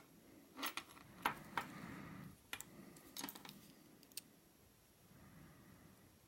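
Small metal lock parts being handled: several sharp light clicks and a brief scrape during the first four seconds, as a shim is worked into a disassembled American 1100 padlock cylinder.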